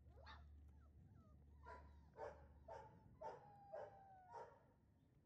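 Faint yapping from a giant schnauzer puppy: a short rising whine, then six quick, high yaps about half a second apart.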